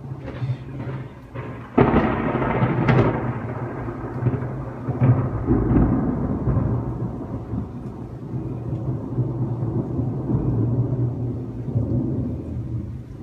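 A sudden thunderclap about two seconds in, with a second sharp crack a second later. It is followed by long rumbling thunder that slowly fades.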